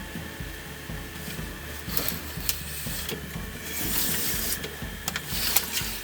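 Irregular clicks and a stretch of rubbing or scraping about four seconds in, over a faint steady hum: small mechanical parts being handled and worked on.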